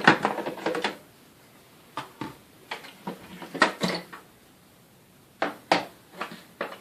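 Stiff plastic lid of a Panasonic MC-CG917 canister vacuum's onboard attachment compartment being worked open by hand: several clusters of sharp plastic clicks and knocks with short pauses between.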